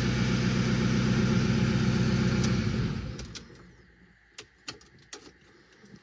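1.9 VW TDI four-cylinder turbodiesel idling steadily, just started on the key, then shut off about three seconds in and running down to a stop. A few light clicks follow.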